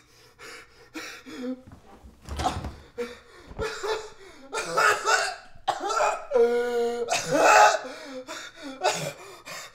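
A man coughing, choking and gasping in short bursts, with a heavy thud about two seconds in as he collapses to the floor. About six seconds in comes a drawn-out groan.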